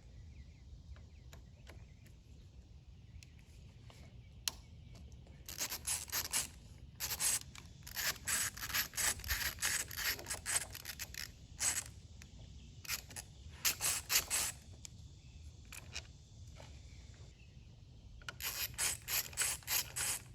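Allen wrench turning out the screws of a motorcycle handlebar switch housing: four spells of quick metallic clicking and scraping with short pauses between them.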